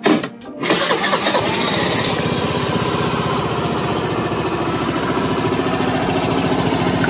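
Suzuki Burgman Street 125 scooter's single-cylinder four-stroke engine started on the electric starter button, catching within about a second and settling into a steady idle on freshly changed engine oil.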